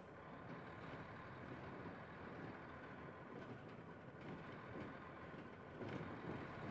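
Early Odakyu Bus 6000-series city bus on the road, its diesel engine and road noise heard from inside the passenger cabin. The noise is steady and swells slightly near the end.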